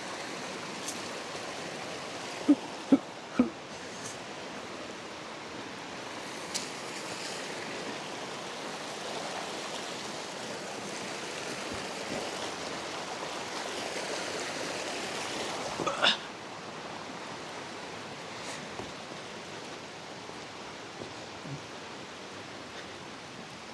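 River water running steadily over a rocky bed, a continuous rush. Three short sounds come close together about three seconds in, and one brief sharp sound about two-thirds of the way through.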